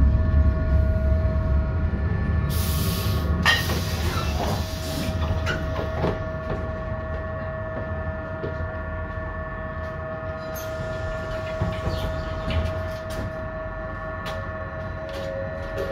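Inside a 1988 ASEA M31 tram as it comes to a stop: the running rumble fades, and about three seconds in the pneumatic air doors open with two loud hisses. While it stands at the stop there is a steady whine from the tram's equipment, with scattered clicks.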